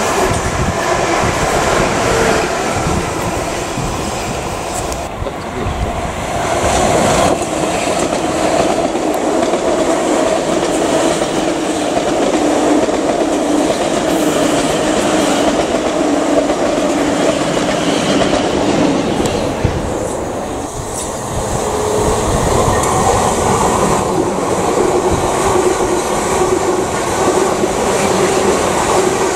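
South Western Railway Class 450 and Class 444 Siemens Desiro third-rail electric multiple units passing close by one after another. Continuous wheel-on-rail rumble with a steady hum over it; the sound shifts twice as one train gives way to the next.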